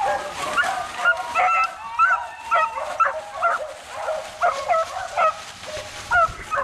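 Beagle puppies yipping and whining in short, high-pitched cries, about two a second, as they work the fresh scent of a rabbit.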